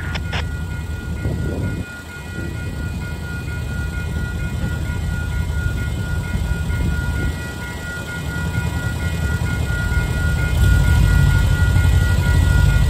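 Railroad crossing warning bell ringing steadily while the crossing signals are active, over a loud low rumble that grows louder near the end.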